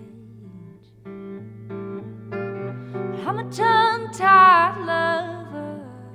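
Live song: a guitar strums a steady, repeating chord pattern. About three seconds in, a woman's voice joins with a wordless sung line that slides up, wavers in a vibrato and is loudest just after four seconds, then falls away before the end.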